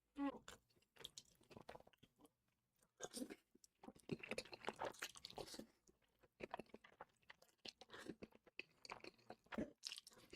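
Close-miked mukbang eating sounds: a person chewing and crunching big mouthfuls of food, a dense run of irregular smacks and crunches.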